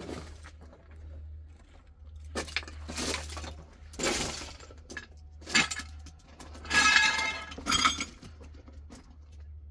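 Hard objects clattering and knocking together in about five separate crashes, the loudest about seven seconds in with a brief ringing.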